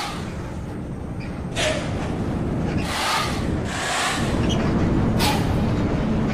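Bus running on the road with a steady low engine and road rumble, broken by four short bursts of hiss.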